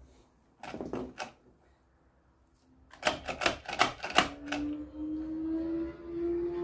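Hands handling a brush cutter engine and its recoil starter, with the plastic parts clicking and knocking: a few knocks about a second in, then a quick run of sharp clicks around three to four seconds in. A steady hum, slowly rising in pitch, sets in after the clicks.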